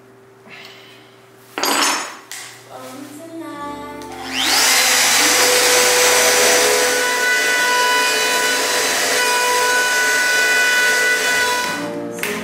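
Electric router motor spinning up about four seconds in, its whine rising fast, then running steadily at full speed. There is a brief clatter of handling about two seconds in.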